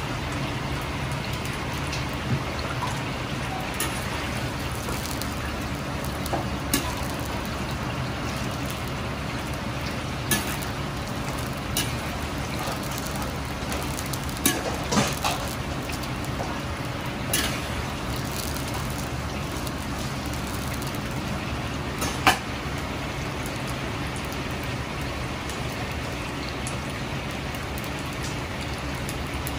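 Battered chicken pieces deep-frying in a wok of hot oil: a steady rain-like hiss and bubbling, with a handful of sharp clicks and pops, a small cluster of them about halfway through as a metal ladle stirs the pieces. A low steady hum runs underneath.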